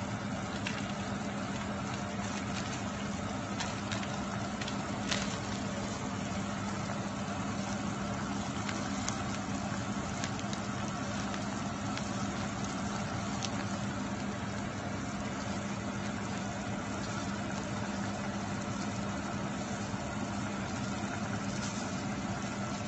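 A pot of meat stew simmering on a gas stove, over a steady low hum, with a few light clicks about four to five seconds in.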